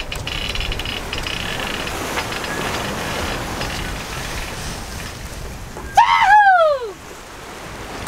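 Wind and sea rushing past a sailboat under sail, with a loud whooping cheer about six seconds in that jumps up and then falls away in pitch.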